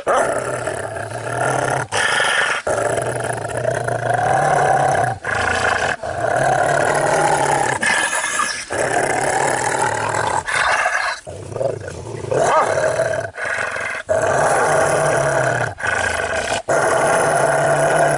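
A dog growling: long, drawn-out growls broken by short pauses every second or two.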